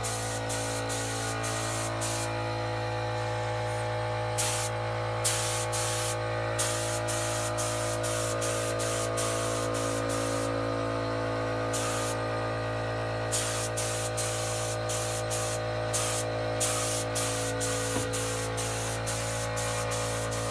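Gravity-feed paint spray gun spraying in short bursts of hiss, coming in quick runs with brief pauses between, over a steady hum.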